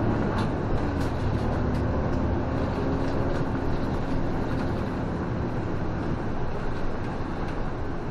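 A city bus under way, heard from inside the cab: steady engine hum and road noise, with a few faint light ticks, the hum easing slightly in the second half.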